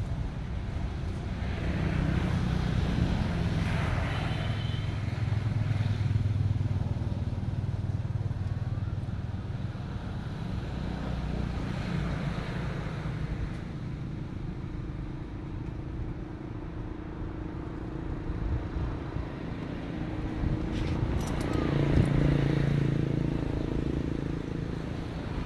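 A motor engine running with a low, steady hum that swells louder a few seconds in and again near the end.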